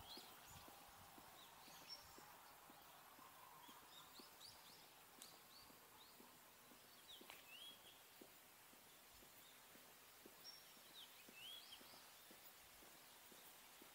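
Faint outdoor quiet with scattered short bird chirps, some rising and some falling, and soft footsteps on a paved stone path.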